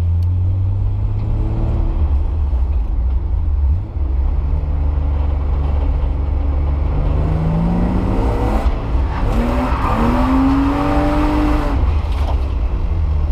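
A car's engine running under a steady low drone, with the revs rising and falling in the second half.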